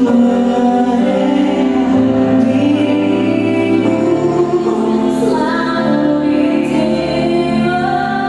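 A choir singing slow, long-held chords that change every couple of seconds.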